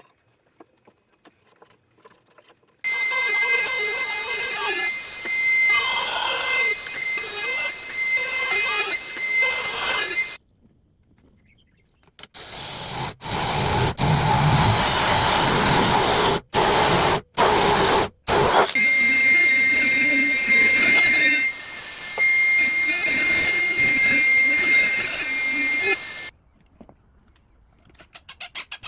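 An electric power tool runs in three long bursts with a steady high whine, stopping between them. The middle burst is rougher and cuts out briefly a few times, as when working through wood.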